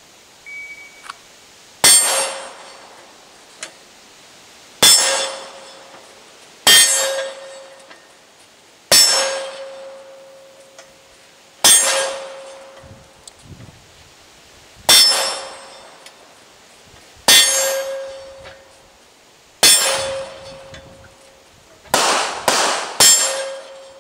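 A short shot-timer beep, then pistol shots a few seconds apart, each followed by the ring of a steel target being hit. Near the end three shots come in quick succession.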